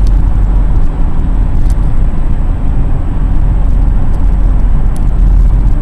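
Road noise inside a moving car at highway speed: a steady, loud low rumble of tyres, engine and wind.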